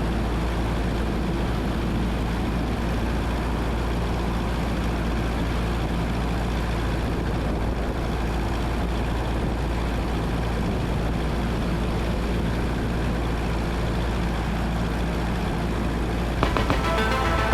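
Steady cabin drone of a 1977 Cessna 172N's four-cylinder Lycoming engine and propeller in flight, with no change in power. Music comes in near the end.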